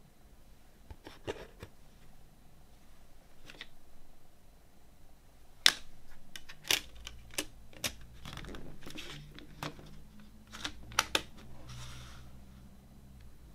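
Sharp plastic clicks from a CD jewel case: the disc snapped onto the tray's centre hub and the case lid clicked shut. Quiet handling at first, then a string of clicks starting a little before halfway, with a quick pair near the end.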